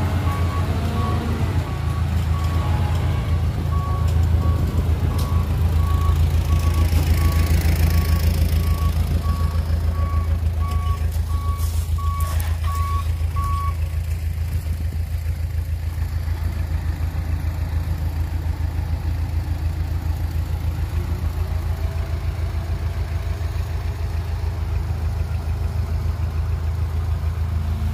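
Dump truck reversing, its backup alarm beeping about twice a second over the steady drone of a heavy diesel engine; the beeping stops about halfway through while the engine keeps running.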